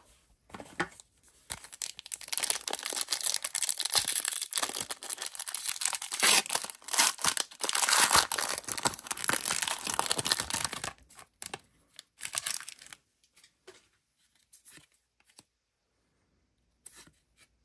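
Foil wrapper of an Upper Deck trading-card pack being torn open and crinkled by hand, a dense crackling rip lasting several seconds, then a few faint clicks as the cards are handled.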